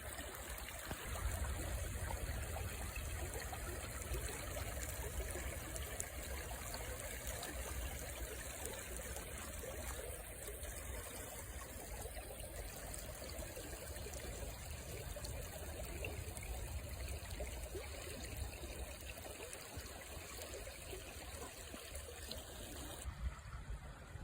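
A river flowing, its water rushing steadily, with a low rumble underneath.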